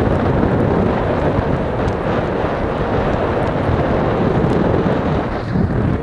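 Steady rumble of wind buffeting the microphone of a camera carried on a moving mountain bike.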